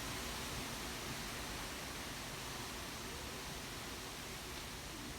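Wind blowing through tree leaves: a steady, even rustling hiss.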